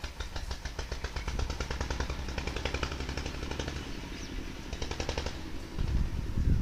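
Common babbler giving a rapid, rattling chatter of many quick repeated notes, which stops about five seconds in. A low rumble runs underneath and grows louder near the end.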